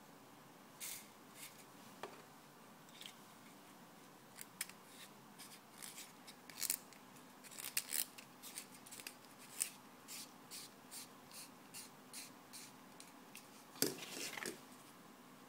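Small sharp clicks and ticks of a pen's plastic and metal parts being handled and fitted together, the purple tip piece joined onto the metal barrel. The clicks come irregularly, thickest in the middle, with a louder little clatter near the end.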